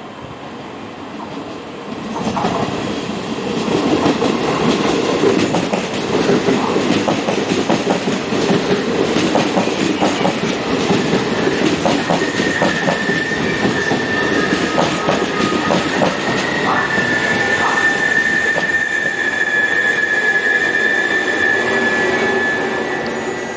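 Passenger train pulling in along the platform: wheels clicking over rail joints and points, then a high steady brake squeal from about halfway through as it slows to a stop.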